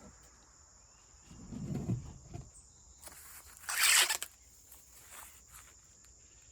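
Husks being torn off an ear of sweet corn by hand: a soft rustle about one and a half seconds in, then a sharper ripping tear about four seconds in.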